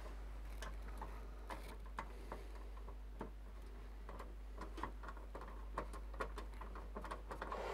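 Faint, irregular small clicks and taps of hands working on computer hardware, metal and plastic parts knocking lightly.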